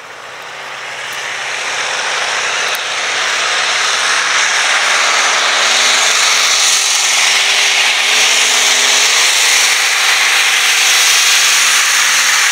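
Modified pulling tractor's engine running flat out as it drags the brake sled down the track. It grows louder over the first few seconds, then holds loud and steady.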